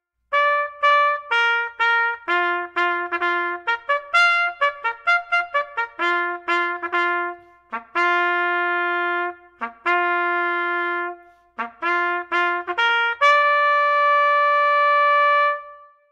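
Background music: a solo trumpet-like melody of quick notes and a few held ones, ending on a long held note that fades out near the end.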